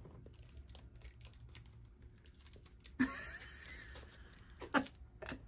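Faint clicks and taps of fingers handling a tiny plastic miniature food piece, with a scratchy rustle lasting about a second and a half about three seconds in.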